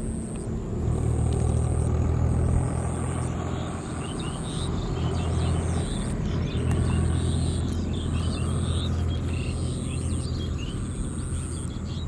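A steady low rumble, with small birds chirping through the middle of the stretch.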